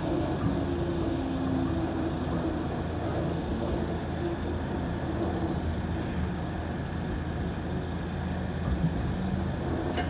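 Steady running noise inside a moving Toronto streetcar: a low rumble of the wheels on the rails with a steady hum from the car's drive.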